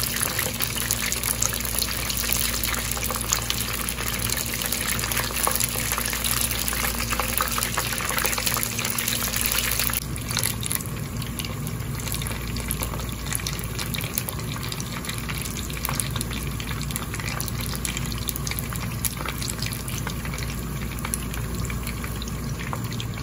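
Batter-coated chicken strips deep-frying in oil in a frying pan on a low flame: a steady, dense sizzle with fine crackling, a little quieter from about ten seconds in.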